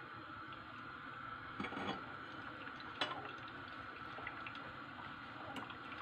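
Faint liquid bubbling and trickling from hot grape juice and mash being strained through a strainer into a pot, with a few light clicks.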